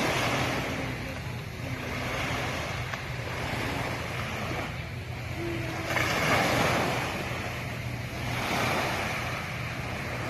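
Sea waves washing and breaking, swelling louder near the start, past the middle and again shortly after, with wind buffeting the microphone and a steady low hum underneath.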